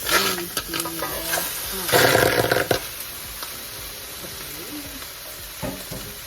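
Skate fish being put into a cooking pot: handling knocks and clatter, with a short, loud rush of noise about two seconds in, then a steady low hiss.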